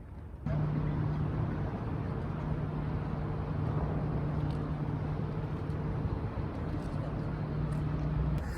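An engine running steadily with a constant low hum, starting suddenly about half a second in.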